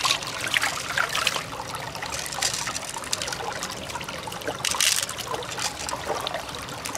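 Wet squelching and trickling as fingers work through the soft, watery flesh of an opened freshwater mussel to pick out pearls, with many small sharp clicks and squishes.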